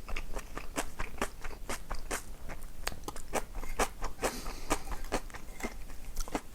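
Close-miked chewing of crisp food: a dense, irregular run of sharp crunches and bites, several a second.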